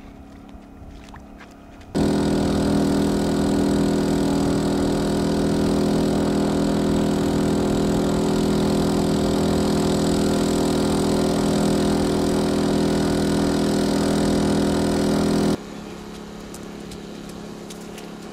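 A motor running steadily at constant speed, an even drone with no change in pitch. It starts suddenly about two seconds in, runs loud, then drops abruptly to a much fainter level near the end.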